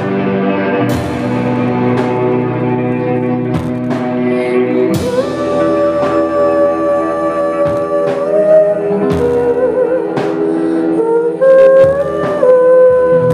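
Live rock band playing an instrumental passage on electric guitars and keyboard. Over the second half a held lead note slides up and down in pitch, getting louder near the end.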